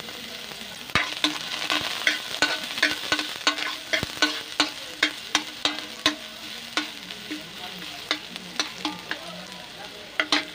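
Metal spatula scraping and knocking against a metal wok, about three strokes a second, thinning out after about seven seconds with a quick flurry near the end. Underneath, chopped garlic sizzles in a little hot oil as it is sautéed.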